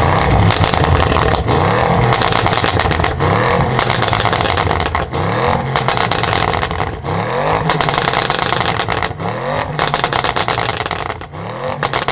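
Audi RS6 Avant C8's twin-turbo 4.0-litre V8, breathing through a decatted Capristo exhaust with the particulate filter deleted, revved in about six short blips, each rising and falling in pitch. Between the blips the exhaust crackles and pops on overrun.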